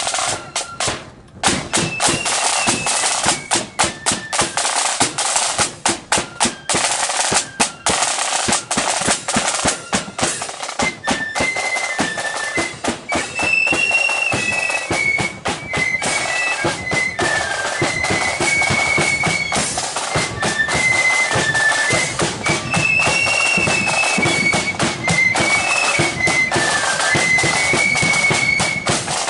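Marching flute band playing: snare and bass drums beat out a rapid drum-led passage, and from about ten seconds in high-pitched flutes carry a tune over the drums.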